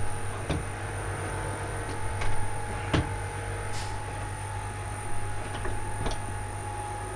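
Steady low hum of a motor yacht's engine-room machinery, with about five sharp knocks and clicks from a door and its fittings being handled, the loudest about three seconds in.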